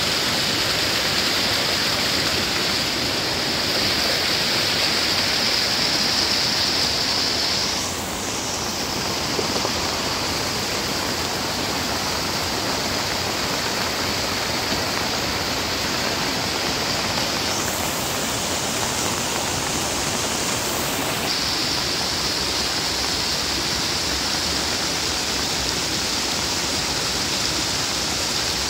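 Steady rushing of muddy rainwater running down a rocky gully after heavy rain.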